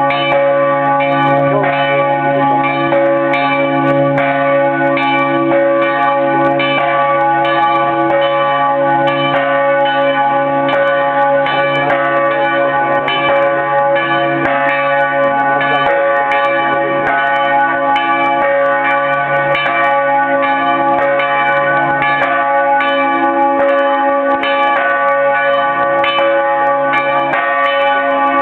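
Several church bells ringing loudly together in a continuous peal, their strokes overlapping so that the deep hum tones and the higher ringing tones never die away.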